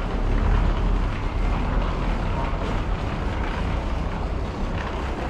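Steady low rumbling background noise of walking through an airport boarding corridor, with faint footsteps and wheeled suitcases rolling on the floor.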